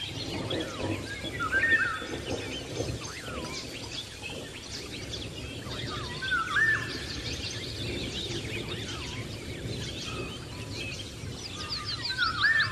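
Several birds calling and chirping together. One louder whistled call that rises and falls comes back three times, roughly every five seconds.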